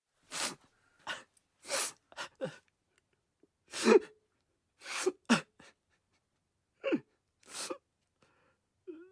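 A man crying: a string of about a dozen sharp sobbing breaths and gasps at uneven intervals, some carrying a short voiced whimper that drops in pitch, the loudest about four seconds in.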